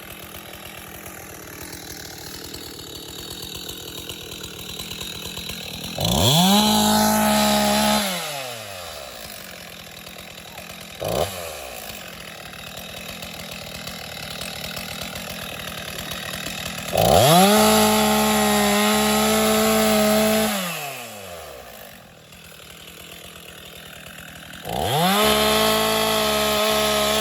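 Chainsaw cutting up felled trees: it idles between cuts, then runs up to full throttle three times for cuts of two to three seconds each. The engine's pitch rises sharply at each start and falls away as it lets off.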